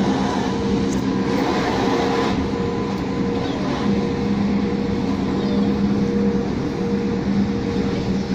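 Southeastern Class 465 Networker electric multiple unit running between stations, heard from inside the carriage: a steady rumble of wheels on the track with an even, steady hum from the train's motors.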